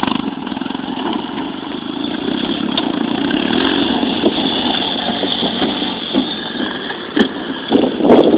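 A small vehicle's motor running steadily as it moves along, with a few light knocks.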